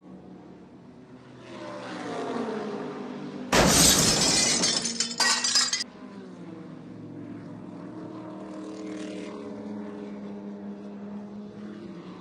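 Race car engines running with a steady drone and some rising and falling pitch. About three and a half seconds in, a loud crashing, shattering clatter lasts about two seconds.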